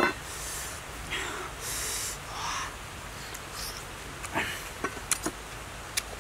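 A person eating with their fingers: short sniffing breaths and small wet mouth clicks from chewing, with one sharp click at the very start and a few quick clicks near the end.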